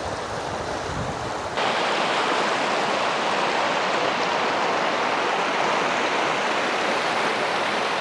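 Fast-flowing stream in full flow, rushing and splashing over stones. About one and a half seconds in, the rush jumps suddenly louder and brighter, heard close to white water tumbling over rocks.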